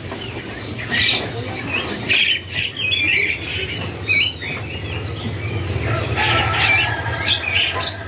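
Caged songbirds chirping with short, scattered calls, along with wing flutters from birds moving in their cages, over a steady low hum.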